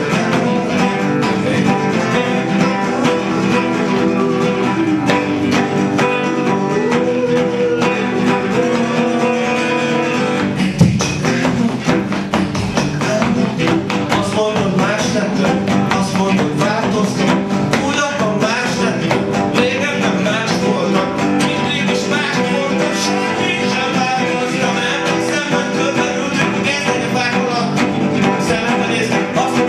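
Acoustic guitar strummed steadily while a man sings along, a solo song performance. One sharp, louder accent comes about a third of the way through.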